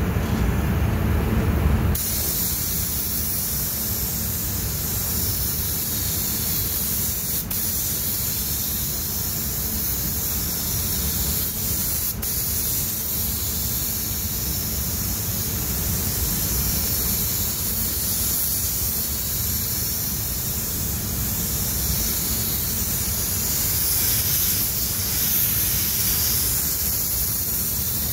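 Gravity-feed spray gun applying the second coat of clearcoat to a car: a steady hiss of atomising air and paint, after a low rumble in the first couple of seconds.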